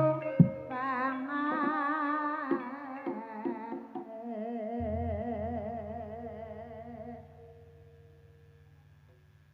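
Live Javanese ebeg/barongan music: a wavering vocal melody with heavy vibrato over sharp drum strokes, then a low steady tone underneath as the music fades away about three-quarters of the way through.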